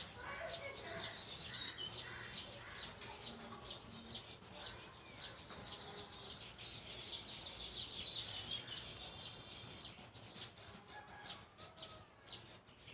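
Small birds chirping and trilling: many short high calls, with a louder trill about eight seconds in.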